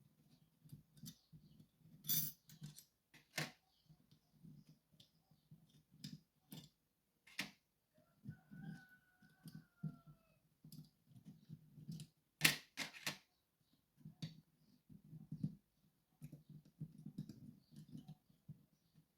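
Small metal parts of a Sargent & Greenleaf 6804 lever safe lock clicking and rattling as the lock is handled and taken apart, with a few sharper clicks standing out, the loudest about two seconds in and near the two-thirds mark.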